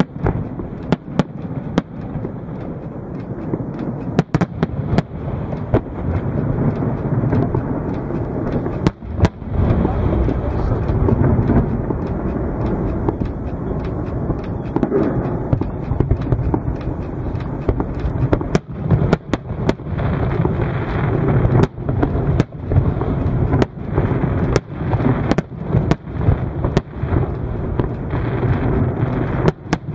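Fireworks display: a steady stream of sharp bangs and cracks at irregular intervals over a continuous low rumble.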